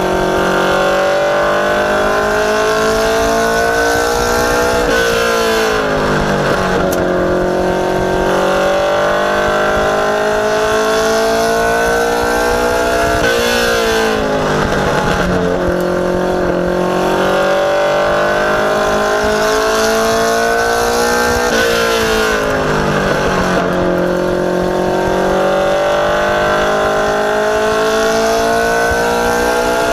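Ministock race car engine at racing speed, heard from inside the cockpit. Its pitch climbs slowly along each straight and drops sharply each time the driver lifts for a corner, about every eight seconds.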